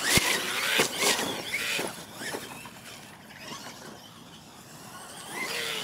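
R/C monster truck's motor and drivetrain whining as it revs up and down, with splashing and a couple of sharp thumps in the first second as it drives through a muddy puddle; the whine rises again near the end.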